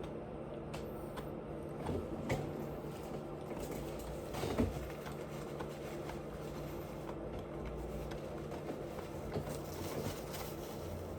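Quiet eating sounds, soft chewing and mouth clicks, over a steady low room hum; the loudest click comes about four and a half seconds in.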